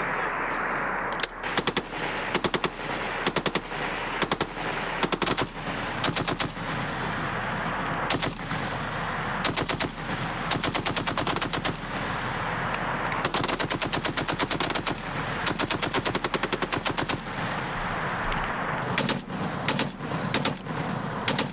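Machine guns firing repeated bursts of rapid automatic fire, some short and some running a second or two, one burst after another.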